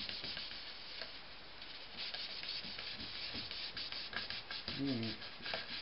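Paper towel rubbing oil into the edge of a walnut and maple cutting board: a dry, scratchy wiping, with quicker back-and-forth strokes from about two seconds in.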